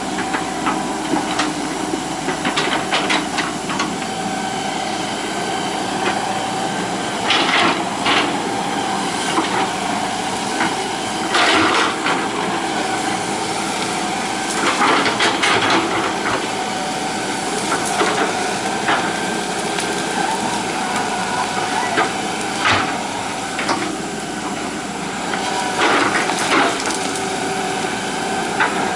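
Hitachi EX120 hydraulic excavator running steadily at work, its diesel engine and hydraulics holding an even whine, with knocks and scrapes every few seconds.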